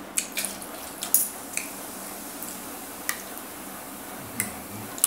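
Fork and spoon clicking against a plate a handful of times at uneven intervals while food is scooped up, with soft eating sounds in between.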